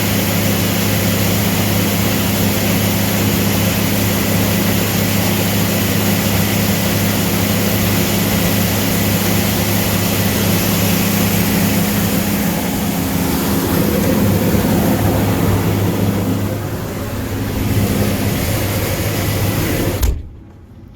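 Combine harvester running steadily, a low engine hum with machinery noise over it. The sound changes about three-quarters of the way through and cuts off abruptly about a second before the end.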